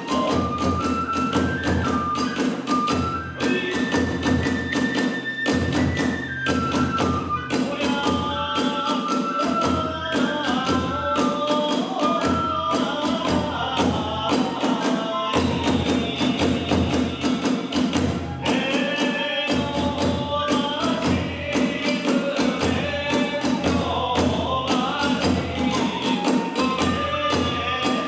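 Kagura hayashi ensemble playing a fast dance accompaniment: drums beating a rapid, dense rhythm, tebyoshi hand cymbals clashing, and a bamboo transverse flute playing a high melody over them.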